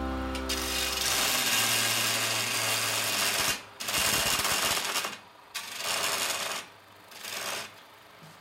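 Wood lathe turning: a hand chisel cutting into the spinning wooden blank, giving a scraping cutting noise in four passes, the first about three seconds long and the rest shorter, with brief pauses between. Background music fades out in the first second or so.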